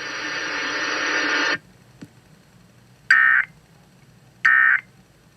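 Broadcast hiss that cuts off after about a second and a half, then two short, identical warbling data bursts a little over a second apart: the Emergency Alert System SAME end-of-message tones that close an alert.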